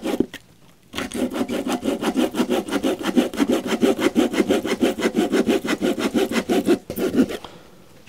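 Hand saw cutting through a wooden board in quick, even back-and-forth strokes, about four or five a second. A short pause just after the start, then steady sawing until it stops shortly before the end.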